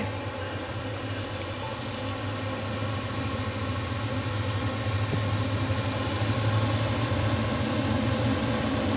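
Norfolk Southern diesel-electric locomotive engines running with a steady low drone, slowly growing louder as the train approaches.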